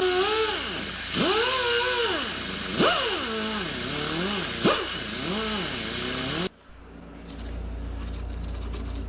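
High-speed rotary grinder whining as it grinds leftover weld slag off a repaired cylinder head. Its pitch sags and recovers about once a second as the bit bites and lifts. The whine cuts off suddenly about six and a half seconds in, and a low hum follows.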